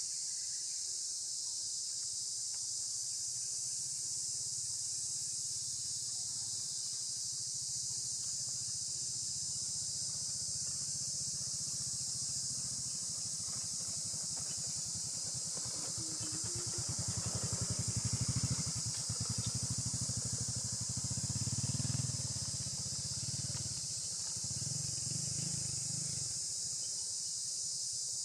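Steady, high insect chorus from crickets or cicadas. Past the middle, a low rumble swells for several seconds and then fades.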